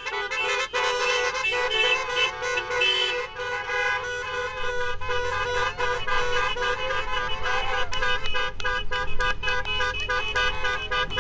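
Car horns honking, several at once, with overlapping held tones that go on throughout.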